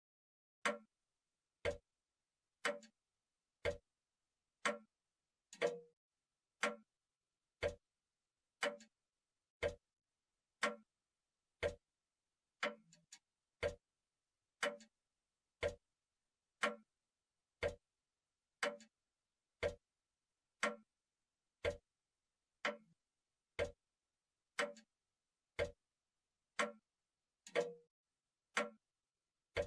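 Clock ticking steadily, about one tick a second, with dead silence between the ticks.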